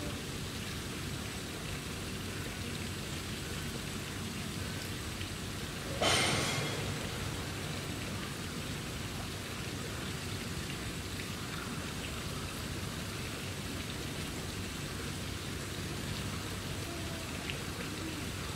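Steady, even patter of rain. About six seconds in, a sudden louder rush of noise fades away within a second.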